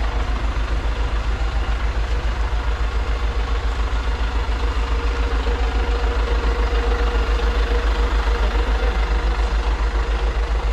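Fire engine's diesel engine idling with an even low throb, about seven beats a second, and a faint steady hum above it.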